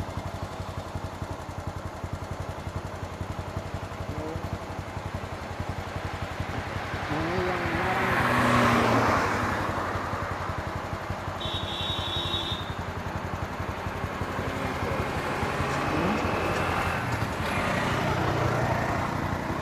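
Road traffic passing: motorcycles and cars go by one after another over a steady low engine hum. The loudest pass comes about eight to nine seconds in, and another swells near the end. A brief high-pitched tone sounds a little after midway.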